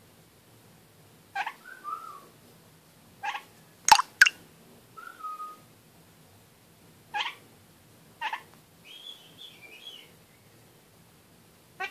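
Red-crowned kakariki calling in a series of short, sharp chirps, with soft warbling chatter between them. The two loudest chirps come close together about four seconds in.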